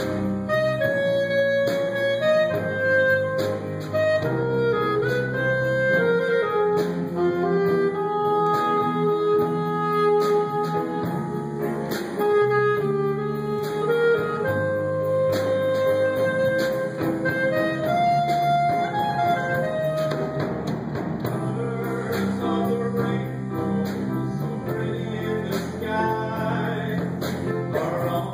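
Small jazz combo playing a jazz standard live: a melody line of long held notes over steady chordal accompaniment.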